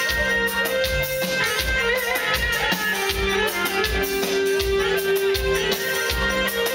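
Assyrian dance music with a steady drum beat, about two beats a second, under held melody notes.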